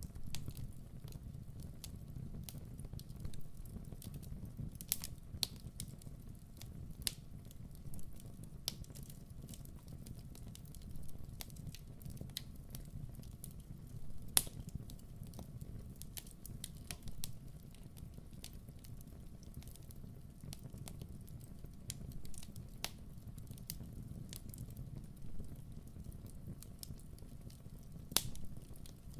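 Fire burning in a fireplace: a low steady rumble of flames with irregular sharp crackles and pops, the loudest about halfway through.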